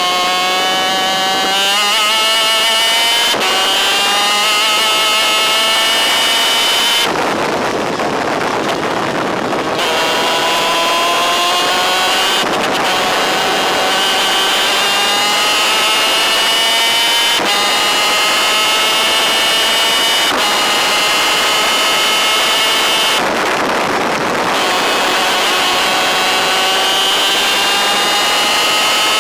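A DEA 250cc two-stroke superkart engine at full throttle, heard from onboard the kart. Its pitch climbs in repeated ramps, breaking off briefly at each upshift. Twice the note drops away for two or three seconds, leaving mostly wind and rolling noise, as the throttle is closed for a corner.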